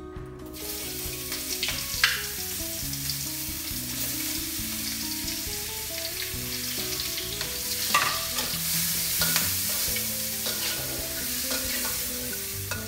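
Mushrooms, green beans and carrots sizzling in hot oil in a wok, starting about half a second in. A spatula scrapes and clacks against the wok now and then as they are stirred.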